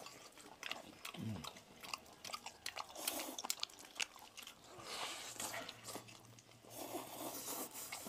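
Eating sounds: biting and chewing griddle-fried lamb skewers, with noodles slurped from a bowl and many small clicks.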